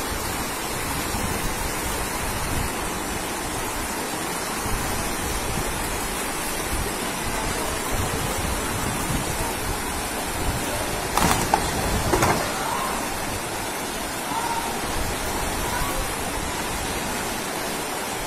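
Fast floodwater rushing down a street, a steady heavy noise of moving water, with two brief knocks about eleven and twelve seconds in.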